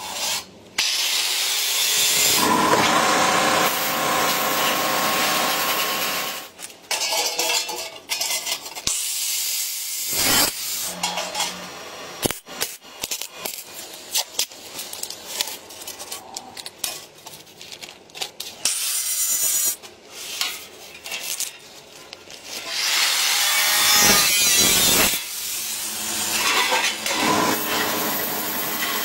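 A string of sheet-metal workshop sounds: scraping and scribing on metal, with hand-tool and power-tool noise. Near the end comes the steady hiss of a sandblast gun cleaning a metal plate inside a blast cabinet.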